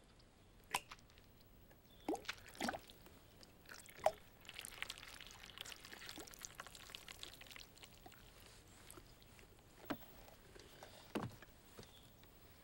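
Thick milk poured from a paper carton into a glass, a splashing pour lasting about three seconds near the middle. A few soft clicks and knocks come before it and two more near the end.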